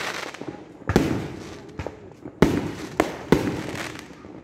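Aerial firework shells bursting overhead: one loud bang about a second in, then three more close together a second and a half later, each trailing off in a rolling echo, with some smaller crackling between.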